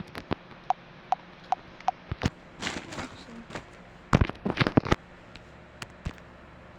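Light clicks and taps, single ticks about every half second, with two short bursts of quick clattering near the middle.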